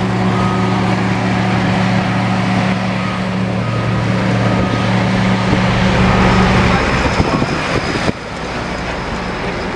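Heavy diesel engines of tandem-axle dump trucks driving past, a steady low drone over road noise. The drone drops away about seven seconds in, and the sound changes abruptly about a second later.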